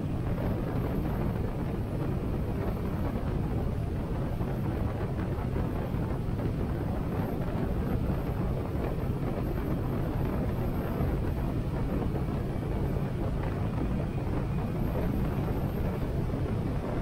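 Harley-Davidson Sportster 883's air-cooled V-twin running steadily on the move, heard with wind noise on a helmet-mounted microphone.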